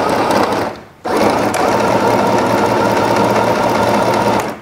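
Mini portable 505 sewing machine running steadily as it stitches through fabric; it stops briefly about a second in, starts again, and stops near the end.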